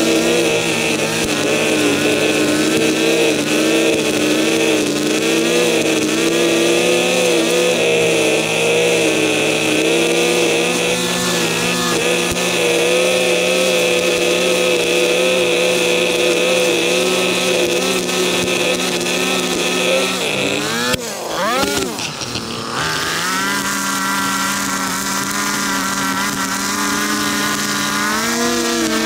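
Gas string trimmer engine running at high throttle, its pitch wavering slightly as the line cuts grass along a sidewalk edge. About 21 s in the throttle is briefly let off and the engine revs back up, then runs steadily again.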